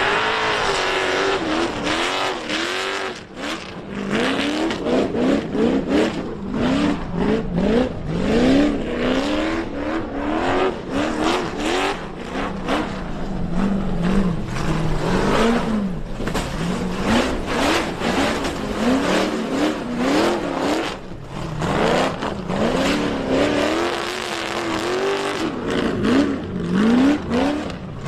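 Off-road 4x4 engines revving hard again and again, the pitch climbing and dropping every second or so as the throttle is blipped and floored, with frequent short knocks and bangs.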